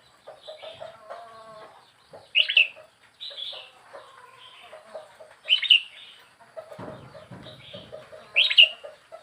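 Red-whiskered bulbul, a wild-caught bird four weeks in the cage, calling: three short, bright calls about three seconds apart, with softer lower chatter in between.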